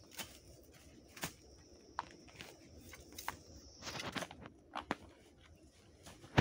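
Short-handled garden hoe chopping and scraping into soil around pennyroyal plants to dig out a root: a series of irregular dull strikes and scrapes with leaf rustle.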